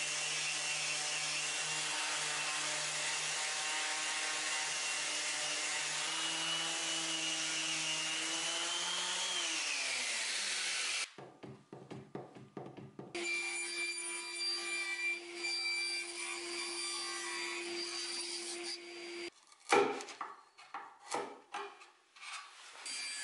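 Random orbital sander running on an old wooden drawer frame, sanding out ink stains. Its pitch falls about ten seconds in as it is switched off and spins down. Then come knocks and handling of the wooden frame, with a quieter steady hum between them.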